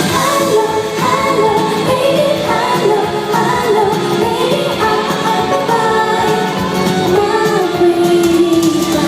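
A female singer performing a pop song live with band accompaniment, her voice carrying the melody over the instruments, with a long held note near the end.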